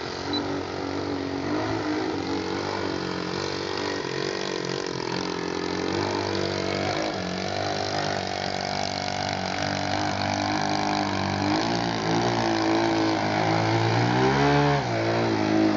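Engine of a Wrong Way Slide 58 RC aerobatic model airplane running, its pitch wavering up and down as the throttle is worked, with a quick rise and fall near the end. It grows louder toward the end as the plane comes closer.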